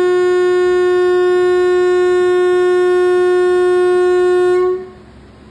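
WAP-7 electric locomotive's horn giving one long, steady, shrill blast on a single note, which cuts off about four and a half seconds in, leaving a low steady hum.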